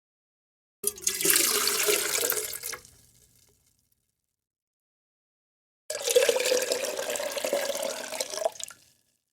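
Water being poured into a glass, twice: a pour of about two seconds starting about a second in and trailing off, then a second pour of about three seconds starting about six seconds in and stopping abruptly.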